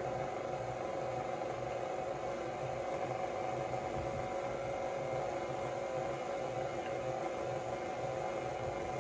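Stand mixer running steadily on a low speed, mixing cake batter as flour is added: an even motor hum with a faint steady whine.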